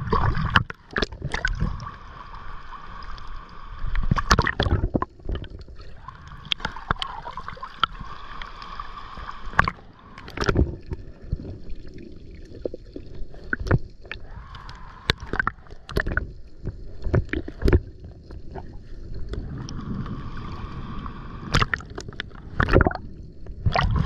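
Water sloshing and gurgling against a small boat's hull, broken by irregular knocks and thumps on the boat.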